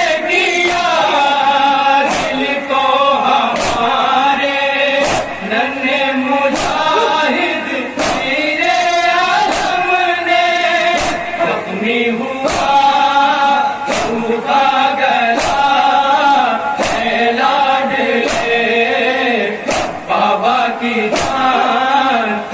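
Men chanting an Urdu noha (Shia lament) together, with sharp rhythmic slaps of matam chest-beating about every three-quarters of a second.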